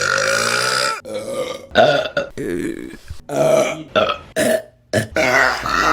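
A string of loud women's burps, one after another. The first is a long belch of about a second, and several shorter ones follow.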